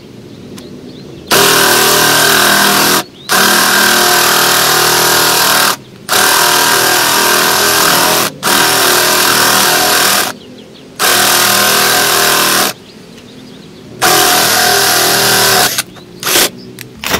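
Cordless drill on speed 2 spinning a 19 mm spade bit into hardwood, run in about six bursts of roughly two seconds with short pauses between, the motor whining steadily under load. The drill is working hard enough that it is getting hot.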